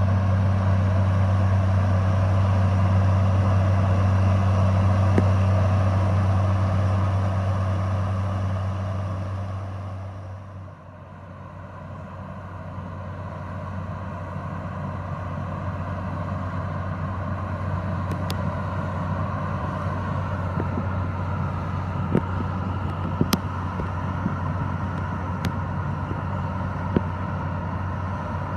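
Tractor-drawn twin-turbine airblast orchard sprayer running, a steady engine hum with a broad rushing noise over it. It fades away about ten seconds in, then a steady machine running sound builds back, with a few sharp clicks near the end.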